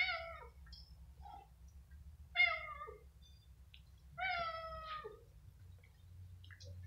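Hungry stray cats meowing at feeding time: three calls about two seconds apart, each falling in pitch at the end, the third the longest.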